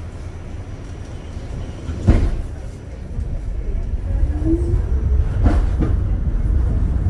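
New York City subway Q train heard from inside the car, its low rumble on the rails growing louder as it picks up speed. There is a sharp knock about two seconds in and two quick clacks a little past halfway.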